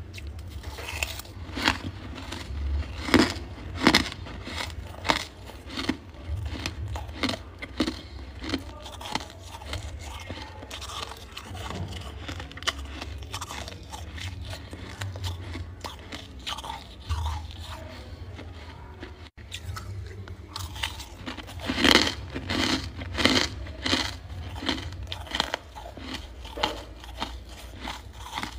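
Close-miked biting and chewing of freezer frost: a run of crisp crunches, loudest and busiest about three quarters of the way through, over a steady low hum.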